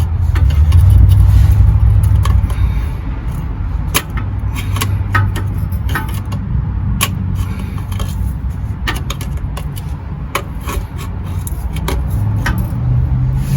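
Hammer striking a flathead screwdriver driven into a stuck, over-tightened oil filter to turn it loose: sharp single knocks at irregular intervals, about ten in all, over a steady low rumble.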